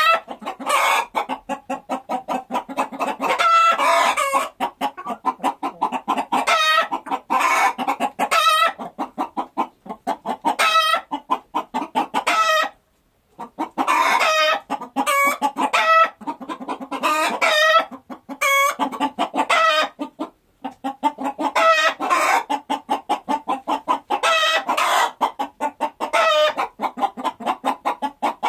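A flock of chickens clucking rapidly and without let-up, with louder pitched calls every couple of seconds. The clucking stops briefly twice, about 13 seconds in and about 20 seconds in.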